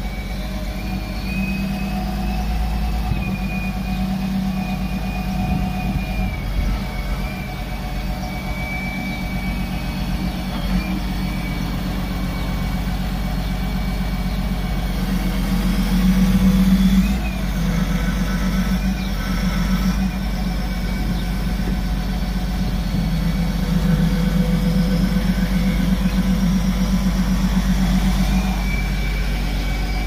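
Caterpillar 928H wheel loader's diesel engine running with a high whine over it, swelling in level about halfway through and again near the end as the joystick controls are worked.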